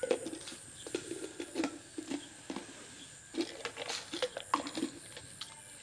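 Hollow plastic knocks and clatter of red plastic bell-type chicken drinkers being handled, lifted and set against each other, at irregular intervals.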